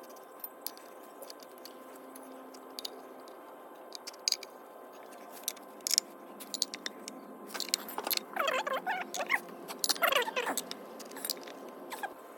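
Metallic clinks and jangling of tools and chain parts being handled. Scattered single clicks give way, from about seven and a half seconds in, to a busier run of rattling with short squeaky scraping sounds that dies down near the end.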